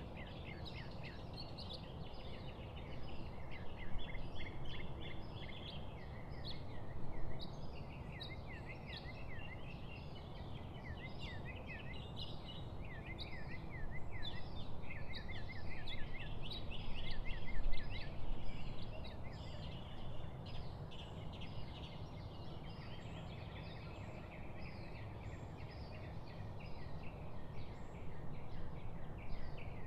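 Many small songbirds chirping and singing together in a dense, continuous chorus of quick repeated notes, over a steady low background rumble.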